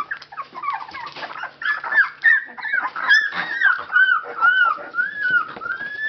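Young Labrador Retriever puppies, 19 days old, whimpering and squeaking: short, high calls that rise and fall in pitch, several overlapping at first, then coming about twice a second.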